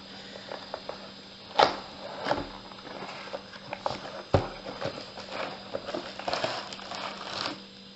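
Cardboard box being opened by hand, with sharp knocks and taps, the loudest about a second and a half in and again about four seconds in, and crinkling handling noise between them.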